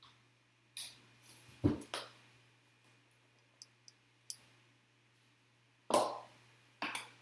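A white paperboard trading-card box being cut open with a utility knife and handled: a series of short scrapes, taps and knocks, the two loudest about two seconds in and about six seconds in.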